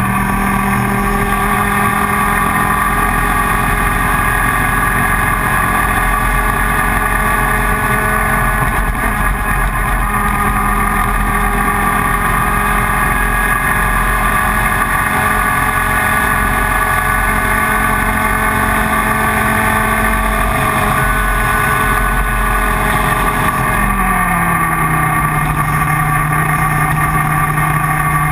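IAME Leopard 125cc two-stroke kart engine running continuously at fairly steady revs, its note drifting slowly, then dropping to a lower pitch about 24 seconds in.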